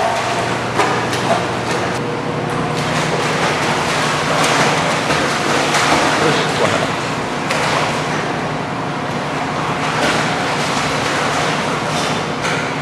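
Steady splashing and churning of water as a large dog paddles hard in a pool, held up by a person standing in the water.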